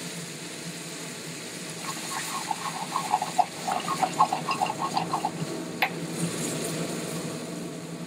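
Heavy cream bubbling and popping in a skillet of bacon drippings over a gas burner as the pan is swirled. There is a quick run of pops, several a second, for about three seconds in the middle, and a single sharp knock shortly after, over a steady kitchen hum.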